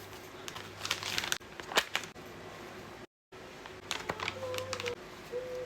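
Packaging being handled for cookie orders: crinkling wrap with light clicks and taps. The sound drops out completely for a moment about three seconds in.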